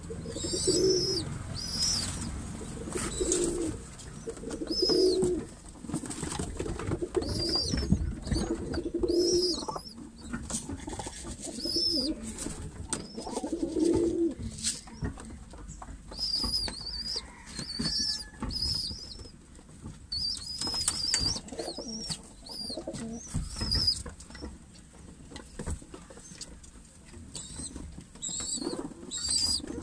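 A flock of domestic pigeons cooing in low, repeated phrases, mostly in the first half. Short high chirps recur throughout, with scattered taps of beaks pecking at feed.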